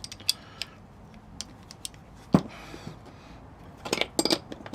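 Spanners clinking and tapping against the metal of the band saw's blade-guide bolts as they are fitted and turned, with scattered single clicks and a quick cluster of clatter near the end.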